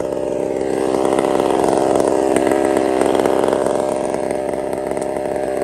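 Husqvarna 372XP two-stroke chainsaw running steadily, growing slightly louder about a second in.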